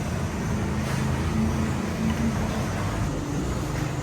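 Steady low mechanical rumble with a low hum, without distinct hammer blows.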